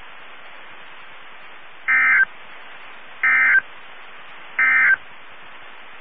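NOAA Weather Radio SAME data bursts: the End of Message code, three short buzzy digital chirps about a second and a half apart, closing the tornado warning broadcast over steady radio hiss.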